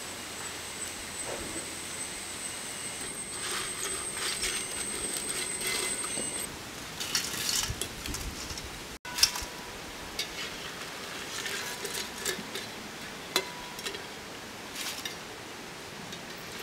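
Oil sizzling in a wok of frying ribbon pakodas, then a metal slotted spoon clinking and scraping against a steel colander as the fried strips are tipped in. The loudest clink comes about nine seconds in, with a sharp one again near 13 seconds.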